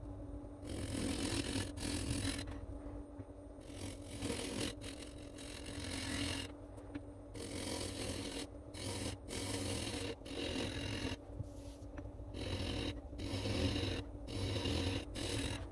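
Wood lathe running with a steady motor hum while a turning tool cuts into a spinning cherry burl and epoxy resin blank. The shavings hiss off in repeated passes with short pauses between them.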